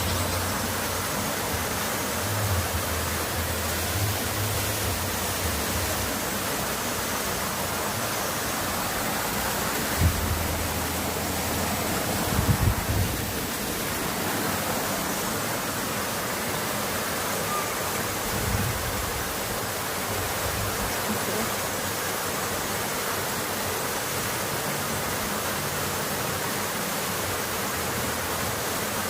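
Clear water rushing steadily, like a stream or small waterfall. A few brief low bumps stand out around ten and thirteen seconds in.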